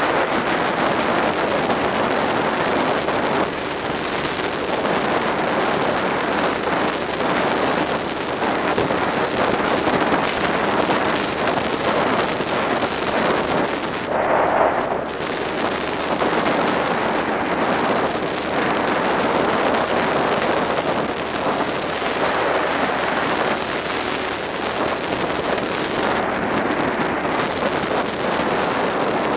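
Wind rushing steadily over the microphone of a Suzuki SV650 motorcycle at riding speed, with its 90-degree V-twin engine underneath, and a brief louder rush about halfway through.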